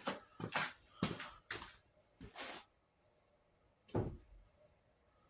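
Handling of tools and metal: a handful of light knocks and clicks over the first two and a half seconds, then a single dull thump about four seconds in.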